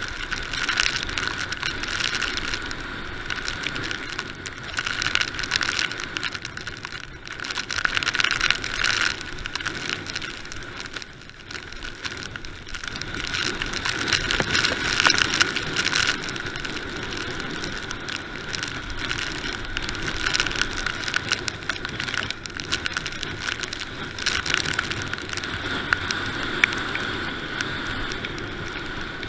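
Mountain bike descending fast over a wet dirt and gravel track, heard close up from the rider's camera: steady tyre noise and the bike rattling over the rough surface, swelling and easing as the speed and terrain change, with a steady high-pitched whine underneath.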